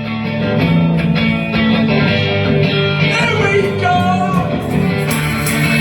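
A live rock band playing an instrumental passage, with guitars over bass and drums; regular high cymbal strokes come in near the end.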